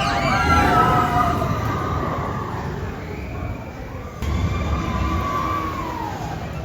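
Intamin family roller coaster train running along its track with a low rumble that swells again about four seconds in. A high whining tone is held over the rumble and drops in pitch near the end.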